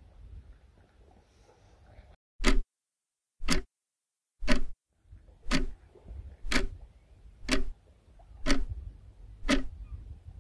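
Clock ticking, one tick a second, eight ticks starting about two and a half seconds in, over a low steady rumble.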